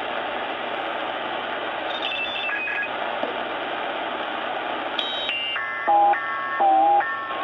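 Sangean ATS-909X2 shortwave receiver in upper sideband giving out band hiss as it is tuned up in 1 kHz steps. A brief group of tones comes through about two seconds in. From about five seconds a louder cluster of FT8 digital-mode tones on the 60-metre amateur band drops in pitch with each step of the dial and settles into a steady tone at the end.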